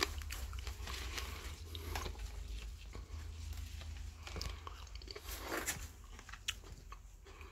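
Someone chewing and biting into fresh grapes close to the microphone: irregular crisp crunches and clicks over a steady low rumble.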